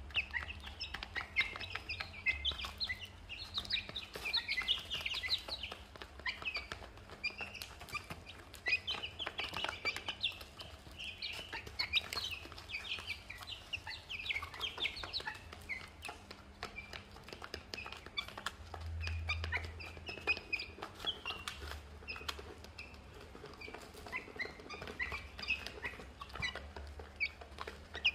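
A flock of young chickens cheeping continuously in short, high peeps, with rapid sharp ticks of beaks pecking feed from a plastic dish.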